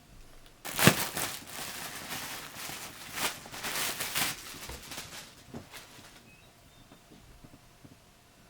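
Packaging rustling and crinkling as it is handled, in a run of quick crackles lasting about four and a half seconds, loudest near the start.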